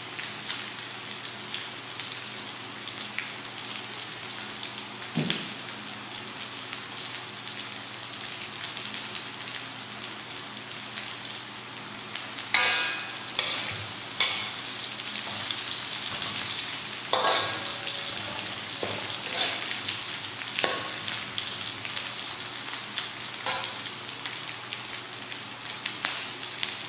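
Sliced lemongrass and garlic sizzling steadily in hot oil in an aluminium wok. A metal spatula scrapes and clinks against the wok every so often, mostly in the second half.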